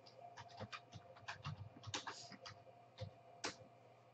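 Faint, irregular light clicks and taps of hard plastic card holders being handled and knocking against each other, about a dozen small clicks over a few seconds.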